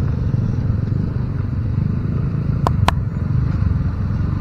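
Motor scooter engine running as it rides up to a railway level crossing, over a steady low rumble. Two short sharp clicks come about two-thirds of the way in.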